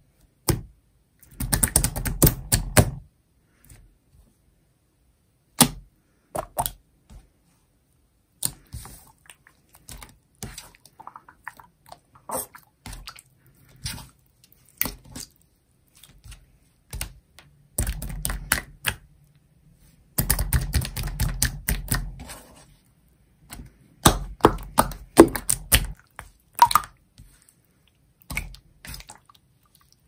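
Hands squeezing and kneading a large lump of clear jelly slime: quick runs of wet crackling and popping clicks with short pauses between them. The runs are densest and loudest about two seconds in, around the middle and again near the end.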